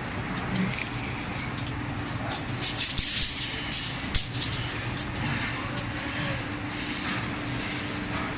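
A steady low hum with a run of sharp clicks and scrapes between about two and a half and four seconds in, as a steel tape measure is handled and run out against a door frame.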